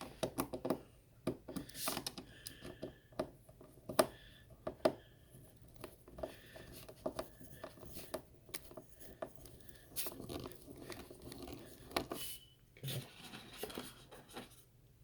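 Small screws being driven by hand with a screwdriver and small parts handled: irregular light clicks and short scrapes.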